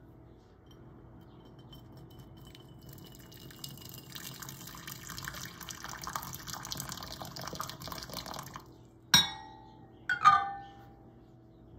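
Hot water poured from a metal kettle into a glass bowl for several seconds, stopping abruptly. Then two sharp glass-on-glass clinks, with a short ring after each, as a smaller glass bowl is set down inside it for a water bath.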